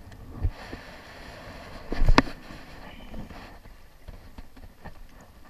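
Wind on the microphone and water against the shore rocks, with a sharp knock about two seconds in and light clicks later, from handling the spinning rod and reel.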